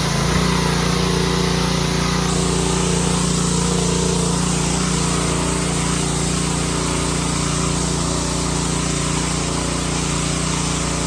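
Gas pressure washer engine running steadily under the loud hiss of its cleaning attachment spraying water. The spray comes on right at the start and grows fuller about two seconds in.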